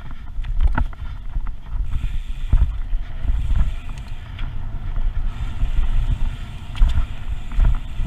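Riding a Carbonda FM-936 carbon full-suspension mountain bike on a dirt trail: wind buffeting the microphone with a heavy low rumble, over tyre noise on dirt and frequent sharp clicks and rattles from the bike.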